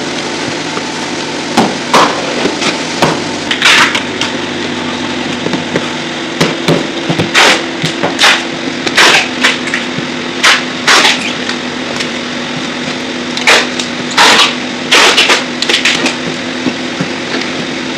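Clear packing tape pulled off a handheld tape dispenser in repeated short screeching rips, a few of them longer, as a cardboard box is sealed, with cardboard handled between strips. A steady low hum runs underneath.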